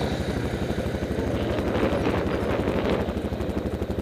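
Single-cylinder four-stroke ATV engine idling with a fast, even putter. A rougher, brighter noise rises over it from about a second in until about three seconds in.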